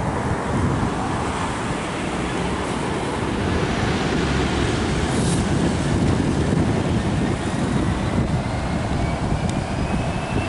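GBRf Class 66 diesel locomotive passing slowly over a steel railway bridge: a steady low rumble mixed with wind noise on the microphone. A faint, thin wheel squeal starts about eight seconds in and rises slowly in pitch.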